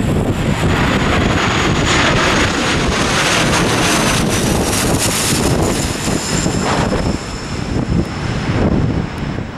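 Bombardier Dash 8 Q400 turboprop airliner passing low overhead on landing approach. Engine and propeller noise swells as it nears, is loudest as it passes overhead around the middle, then eases as it moves away, with a high whine falling slowly in pitch. Gusty wind buffets the microphone throughout.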